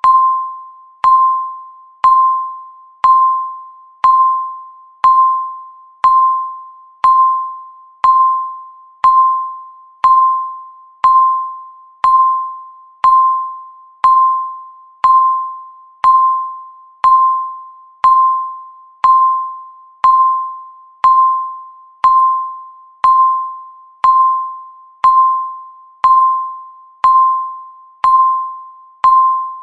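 Countdown timer beep ticking off the seconds: one mid-pitched electronic tone each second, each starting sharply and fading away before the next.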